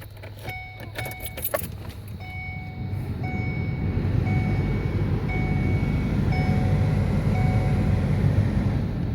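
A 2008 Ford Focus's heater/AC blower fan is running steadily again after its burnt connector was cleaned, its air rush growing louder over the first few seconds and then holding. Over it the car's warning chime sounds about once a second, and there are a few clicks near the start.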